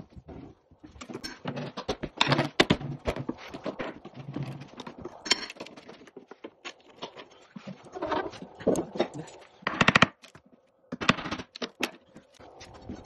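Irregular knocks, cracks and scraping of old wooden floorboards being taken up, with a sharp burst of cracking about ten seconds in.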